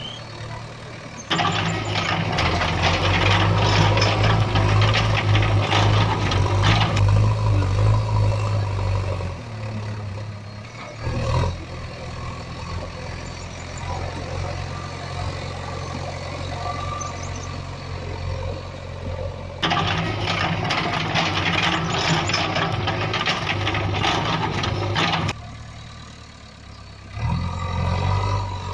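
A heavy vehicle's engine running with a steady low hum, rising to much louder stretches about a second in, in the latter half and near the end, each starting and stopping abruptly.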